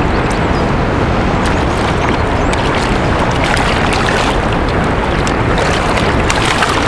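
Steady wind on the microphone over choppy sea water slapping at a kayak, with scattered sharp ticks and splashes as a hooked sea bass thrashes at the surface beside the boat.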